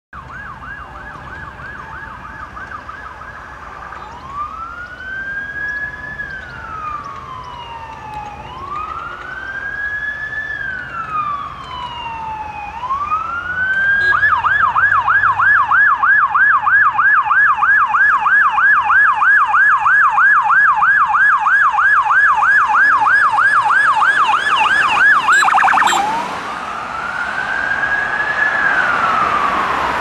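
Siren of a 2014 Mercedes-Benz Sprinter emergency ambulance under blue lights. It opens with a very fast warble, changes to a slow rising-and-falling wail, then at about fourteen seconds to a rapid yelp that is loudest as the ambulance passes. About four seconds before the end it switches back to the wail.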